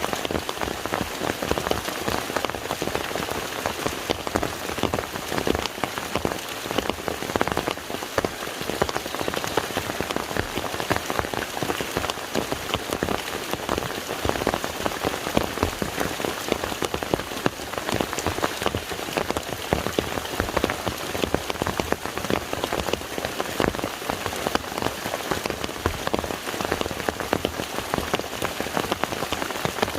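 Steady rain falling on a lake's surface, a dense haze of countless individual drop impacts that does not change in strength.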